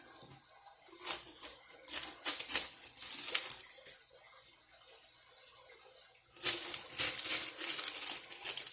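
Loose coins from a piggy bank clinking and clattering together in two spells: one from about a second in lasting about three seconds, the other starting about six and a half seconds in and running on, denser, to the end.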